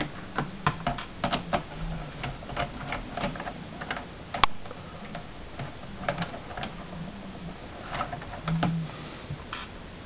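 Small flathead precision screwdriver backing out the tiny screws that hold down a laptop keyboard: irregular small clicks and ticks of metal on metal and plastic.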